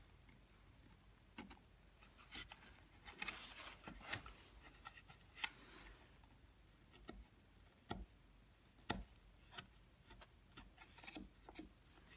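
Hand carving chisel scraping and shaving the surface of a relief cherub carving in faint, irregular short strokes, with a couple of longer scrapes a few seconds in.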